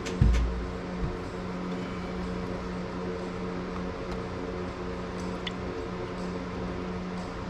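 Steady machine hum, like an electric fan or motor running, with a dull thump about a quarter second in and a few faint clicks.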